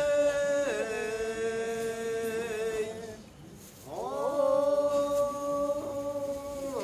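A single melodic line of Japanese festival ohayashi music, without drumming: a long held note that slides down about a second in and wavers, a short pause, then a note that glides up and is held before dropping near the end.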